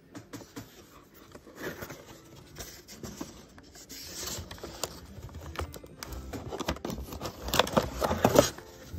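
Cardboard pistol box being opened and handled: irregular scraping and rubbing of cardboard with light knocks and clicks, busiest and loudest about a second before the end as the pistol is taken hold of in its insert.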